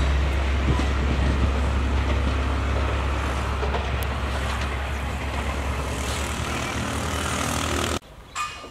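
Diesel locomotive engine running with a steady low drone and a wash of train noise, easing slightly, then cut off abruptly near the end.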